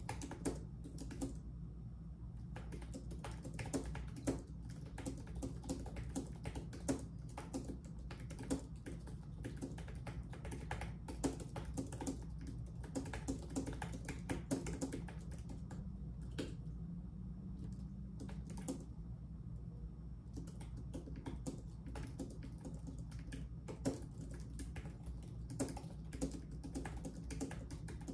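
Typing on a computer keyboard: irregular runs of keystrokes with short pauses between them, over a low steady hum.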